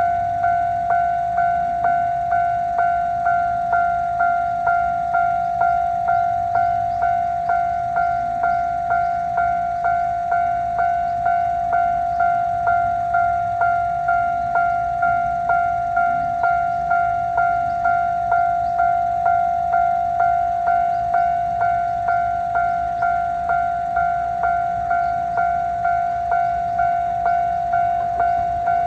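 Railway level-crossing warning alarm ringing its repeated "kan-kan" strikes at a steady, even pace, each strike a bright ringing tone.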